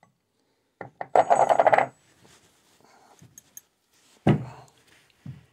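Steel parts of a dismantled single-cylinder diesel engine clattering as they are handled: a few clicks, then a rapid metallic rattle lasting under a second, followed about two seconds later by a sharp metal knock that rings briefly and a lighter knock near the end.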